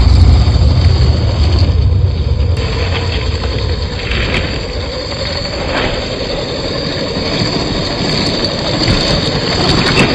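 Axial SCX10 II 1/10-scale RC rock crawler driving over rocks: its small electric motor and gearbox whine steadily, with scattered clicks of tyres and chassis on stone near the end. A low rumble fades out over the first couple of seconds.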